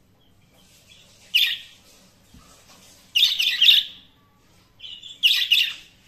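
Budgerigars chirping and warbling in three bursts of quick, high-pitched calls: a short one about a second and a half in, a longer one near the middle, and another near the end.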